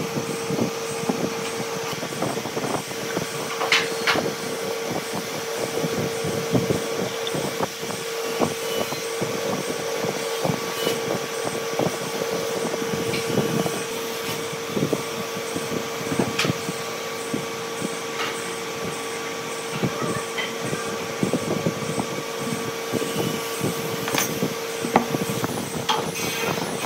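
A steady machine hum with one constant tone, under scattered light taps and knocks as a steel ruler, a square and a pencil are set down and worked on wooden beams.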